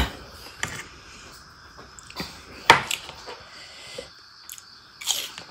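Close-up mukbang eating sounds: chewing and mouth noises, with a few short, sharp crunches and clicks spread a second or so apart, the loudest about halfway through.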